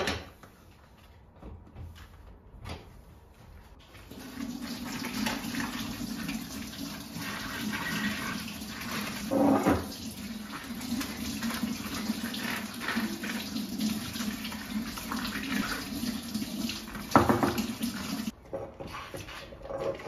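Kitchen tap running into a sink as a glass bottle is rinsed under it, starting about four seconds in and shutting off abruptly near the end. A couple of knocks sound over the water, with a few soft clicks before it starts.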